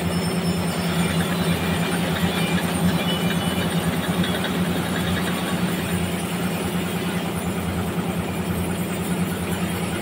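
Large vertical band sawmill running through a trembesi (rain tree) slab: a steady low machine hum with a fast, even pulsing.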